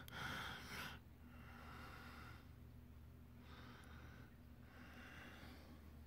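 Near silence: a low steady hum with four faint breaths close to the microphone, each under a second.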